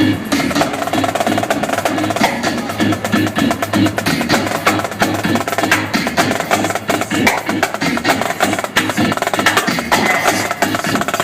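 Live drumming played in fast, dense strokes over a dance-music track.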